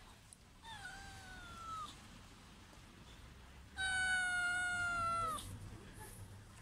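Street cat meowing twice. The first meow comes about half a second in, fainter and sliding slightly down. The second comes about four seconds in, louder and longer, holding its pitch and then dropping at the end.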